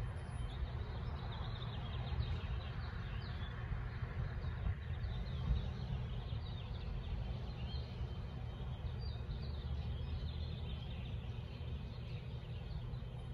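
Small birds chirping many times in quick short notes over a steady low rumble of street ambience.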